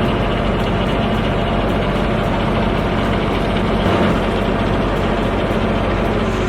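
Heavy machine's engine running steadily, with a dense mechanical noise over it.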